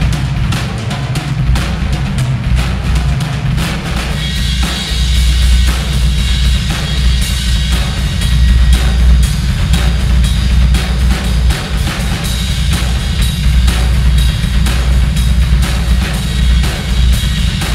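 Acoustic drum kit played in a fast, busy groove, with the bass drum and snare to the fore and cymbals coming in brighter about four seconds in. The room is echoing too much, the sign of a space with little acoustic treatment.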